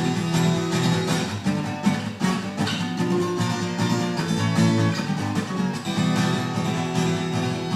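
Acoustic guitar strummed steadily through an instrumental passage between verses of a song.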